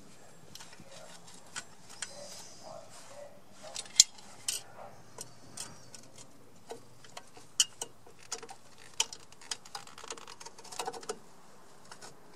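Irregular metallic clicks and clinks of a hand tool and small brake parts against a steel drum-brake backing plate as a wheel cylinder is fitted and its bolts lined up. The sharpest click comes about four seconds in, and there is a quick cluster of clinks near the end.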